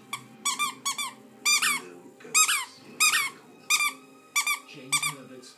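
Dog chewing a plush squeaky toy, setting off a quick irregular series of short high-pitched squeaks, about two a second, some in quick pairs.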